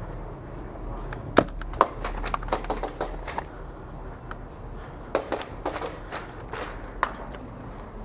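A person moving quietly over stone rubble and dry leaves, making irregular light clicks and crunches in two bursts: one from about one to three and a half seconds in, the other from about five to seven seconds in.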